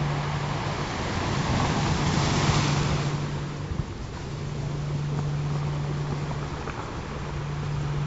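Ocean surf rushing steadily, swelling to a peak about two to three seconds in, over a low steady tone that drops out briefly a few times.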